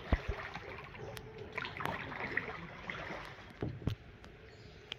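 Kayak paddle strokes: water splashing and trickling off the paddle blades, with scattered knocks on the plastic kayak.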